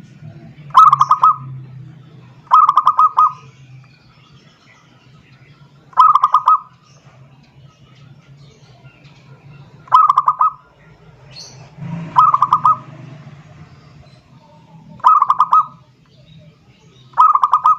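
Zebra dove (perkutut) cooing: seven short bursts of rapid, purring notes, each about half a second long and two to four seconds apart. It is the perkutut's song calling out to a rival bird to answer. A faint low hum runs underneath.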